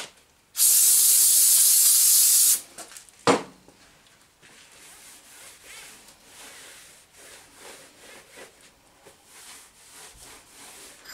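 Aerosol cleaner can spraying in one steady hiss for about two seconds onto lathe ways to cut the oil off them, then a single sharp knock and the soft rubbing of a shop towel wiping the ways down.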